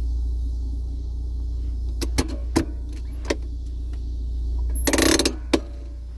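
Fiat Uno handbrake lever being worked: a few separate clicks, then a quick run of ratchet clicks about five seconds in, and a last click. A steady low hum lies underneath.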